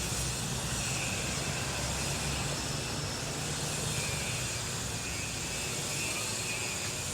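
Street traffic: a motor vehicle's engine running nearby with a low hum that fades out about five and a half seconds in, over a steady hiss of street noise.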